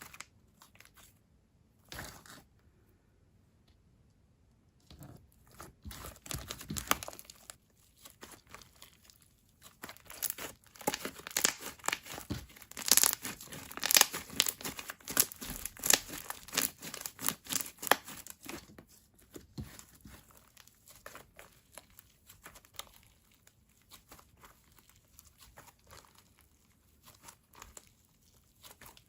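Thick, glossy slime (a three-glue blend with silica) being stretched, folded and pressed by hand, making a run of wet clicks and small bubble pops. The sounds are sparse at first, come thick and fast through the middle, then thin out.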